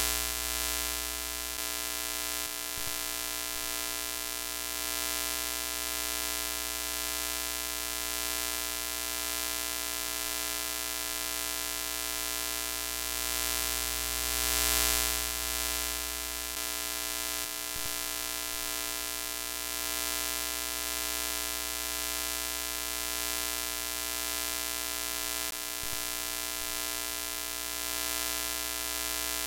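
Electrical hum-and-static glitch sound effect of a broken TV screen: a steady buzzing hum with many overtones under a hiss. It swells briefly near the start and again about halfway through, with a few faint crackles.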